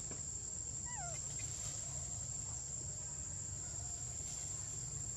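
Steady, high-pitched drone of insects in the forest undergrowth, with one short, falling chirp about a second in.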